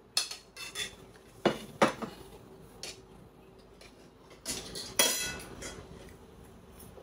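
Tableware clinking and knocking as food is served and eaten: utensils striking plates and serving dishes in a string of sharp clinks. The loudest clink comes about five seconds in and rings briefly.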